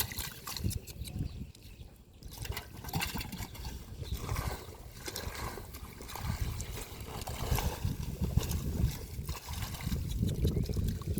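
Shallow river water sloshing and trickling, with irregular splashes and crackling rustles as hands work through floating water hyacinth.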